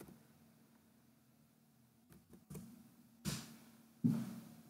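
A few scattered clicks of a computer keyboard and mouse, the loudest about three seconds in, over a faint steady electrical hum.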